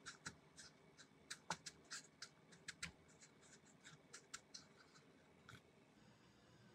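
Fingers dredging a chicken heart in dry breadcrumbs in a plastic container: faint, irregular crunching and scratching clicks that stop about a second before the end.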